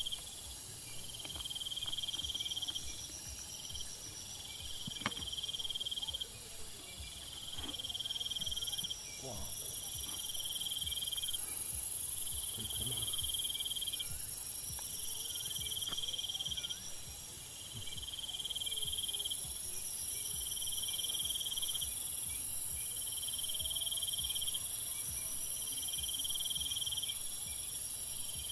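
Outdoor insect chorus. One insect chirrs in repeated pulses about every second and a half. A louder, high-pitched shrill switches on for several seconds at a time, twice.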